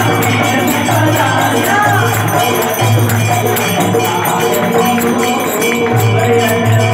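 Devotional aarti music with a steady beat, jingling percussion and a low bass line.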